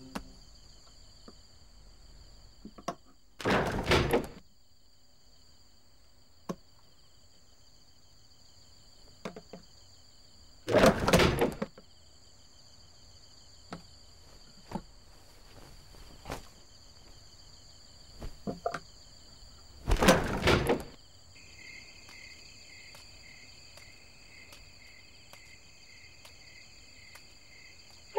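Crickets and other insects chirping steadily, with a second insect's pulsed chirp joining about three-quarters of the way through. Over them come three loud scraping noises, each under a second, as wooden boards are pulled and shifted, plus a few small knocks and clicks.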